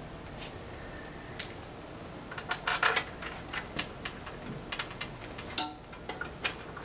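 Scattered metallic clicks and clinks of clutch-cover bolts being handled and threaded finger tight into a Lipe 15.5-inch clutch cover on a flywheel. A quick cluster of clicks comes about two and a half seconds in, and one sharp, loud click a little past five seconds.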